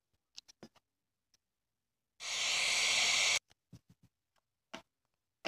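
Scattered light clicks and taps from handling, with a steady hiss lasting a little over a second about two seconds in.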